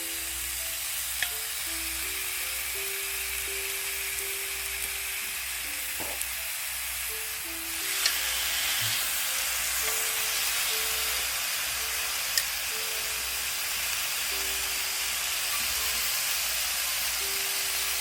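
Pork galbi sizzling on a hot pan: a steady frying hiss that grows a little louder about eight seconds in, with a few small pops. Soft background music plays underneath.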